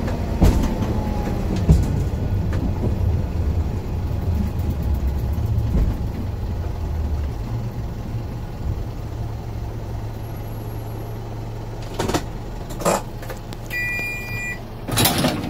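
Cabin sound of a DMV rail-bus slowing to a stop, its engine giving a steady low hum that eases off about halfway through. Near the end come two knocks, a short two-tone electronic beep, and then a louder clatter as the passenger door opens.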